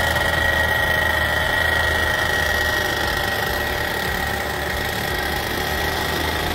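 The 120cc paramotor engine and propeller of a powered paraglider trike running steadily during a taxi test, with a steady high whine. It grows slightly fainter as the trike rolls away.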